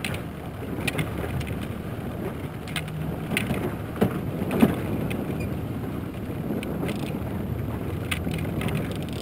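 Small outboard motor running steadily at trolling speed on an aluminium boat, with water and wind noise, and a few scattered clicks and knocks from fishing gear being handled.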